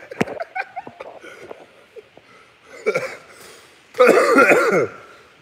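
A man's wordless voice in short bursts: a brief one about three seconds in and a louder run of quick bursts falling in pitch about four seconds in, with a few knocks from the phone being handled at the start.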